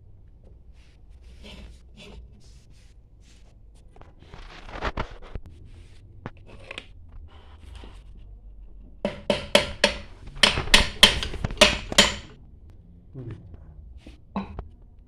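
Hand work on a booster pump's metal parts: scattered clinks and handling noise, then about a dozen sharp metal knocks in quick succession over some three seconds, as parts are tapped together while the pump's bearing and seal are being changed.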